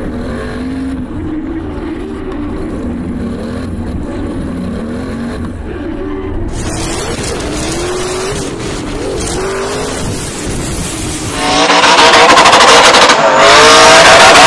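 Drift car engines revving up and down as the cars slide, with tyres squealing. About eleven and a half seconds in the sound becomes much louder.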